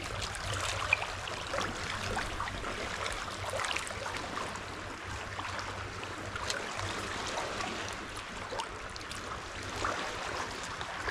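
Calm sea water lapping and trickling among shoreline rocks, a steady wash with many small irregular splashes. A single sharp click stands out about a second in.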